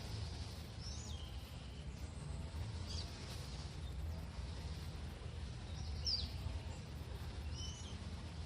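A songbird giving short, high calls about four times, some slurring downward, over a steady low background rumble.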